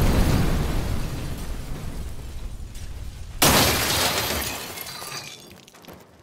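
Explosion booms: the tail of one blast dying away, then a second sudden blast about three and a half seconds in that fades out over the next two seconds.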